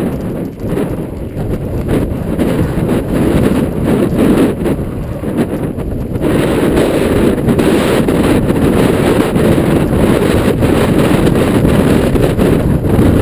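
Loud wind buffeting the camera microphone in gusts of over 30 mph. It is a little weaker for the first six seconds, then grows louder and steadier.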